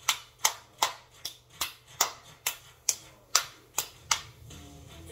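Hand claps in a steady beat, about two and a half a second, sharp and ringing in a small room. Music from a smart speaker comes in faintly just before the end.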